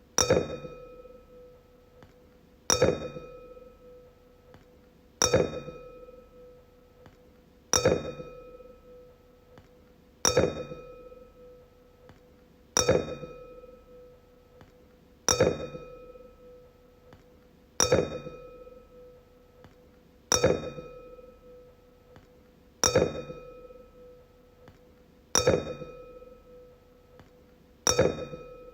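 Wine glass tapped about every two and a half seconds, each tap ringing out in a clear tone that fades before the next.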